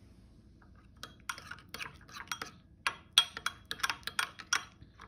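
A utensil stirring thick sauce in a bowl, clinking and scraping against the bowl's side in quick, irregular strokes that start about a second in.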